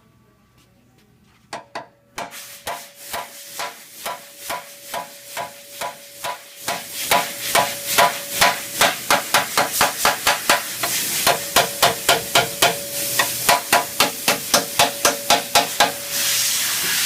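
A hammer striking steel again and again, about three blows a second, each with a metallic ring, getting louder and quicker as it goes, then cutting off suddenly.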